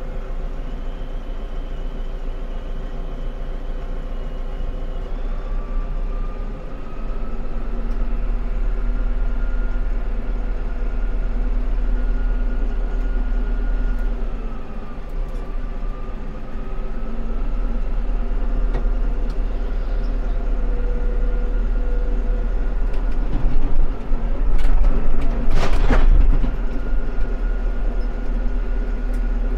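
Mahindra 85P tractor's diesel engine running, its pitch rising and falling as the tractor comes down the trailer ramps. Near the end there is a sharp bang and then a loud clatter as it rolls off the ramps in neutral, faster than intended.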